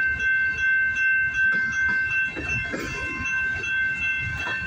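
Freight train rolling past: a low rumble with a rhythmic wheel clatter, about two beats a second at first, then evening out as the train speeds up. A steady high-pitched ringing tone runs over it the whole time.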